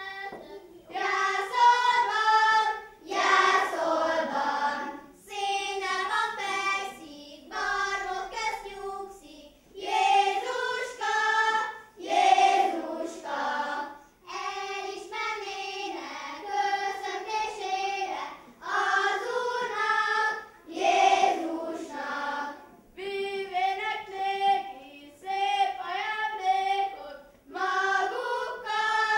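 Children's choir singing a betlehemes (Hungarian nativity-play) song, unaccompanied, in short phrases with brief pauses between them.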